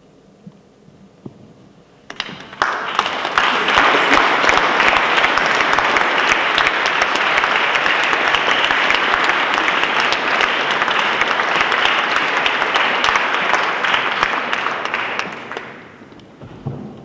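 Audience applauding: it breaks out about two seconds in, holds steady, and dies away near the end.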